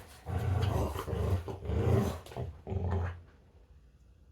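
Dog growling in play over a toy, in several short low bursts, then falling quiet about three seconds in.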